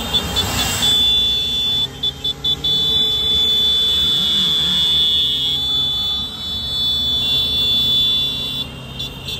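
Vehicle horns honking: a few short high-pitched toots, then long held blasts, over the steady hum of motorcycle engines and road noise.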